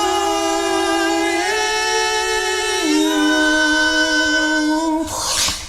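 A cappella singing by a beatbox battle performer: long held vocal notes that step to a new pitch about a second and a half in and again about three seconds in, ending about five seconds in with a short breathy hiss.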